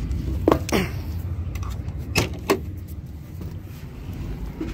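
Climbing into an excavator cab: four sharp metal knocks and clanks in two quick pairs, about half a second in and again just after two seconds, over a steady low rumble.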